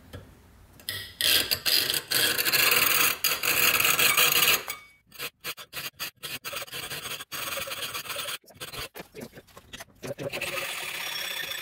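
Hand hacksaw cutting through the fins of an aluminium heat sink in back-and-forth strokes. The strokes are loudest from about a second in to nearly five seconds in, then come choppier with short breaks, and steadier and quieter near the end.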